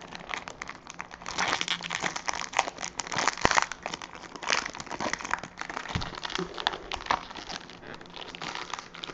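Foil trading-card pack wrapper being torn open and crinkled by hand, a busy run of crackling and sharp crinkles.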